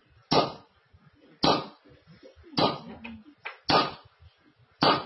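Five short, forceful sounds at an even pace, about one a second, each fading quickly, as a kneeling man's back is pushed down over and over in a mock physiotherapy treatment.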